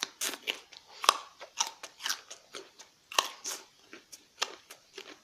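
A raw carrot being bitten and chewed close to the microphone: a run of sharp, irregular crunches.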